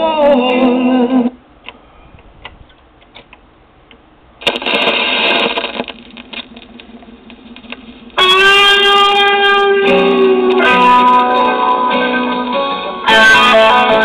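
Music played on an RCA 45-EY-2 45 rpm record player. The music stops about a second in, a few seconds of low hiss and soft clicks follow with a brief louder burst around four seconds, and a new song with guitar starts about eight seconds in, consistent with the changer dropping and playing the next record.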